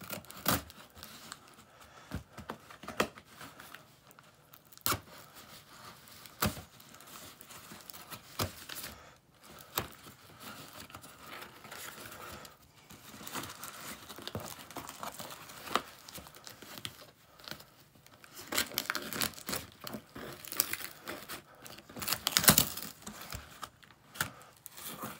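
Scissors cutting into a taped cardboard box, with packing tape and cardboard tearing and crinkling as the box is pulled open. Short sharp snips and clicks are scattered throughout and come thickest and loudest in the last several seconds.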